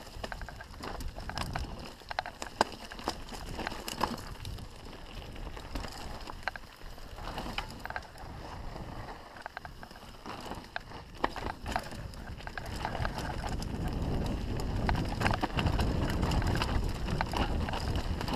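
Enduro mountain bike descending a rocky dirt trail, heard from a camera on the rider: tyres crunching over dirt and stones, with the chain and frame rattling in many sharp clacks over rocks and roots. A low rumble of wind on the microphone grows louder over the last few seconds as speed picks up.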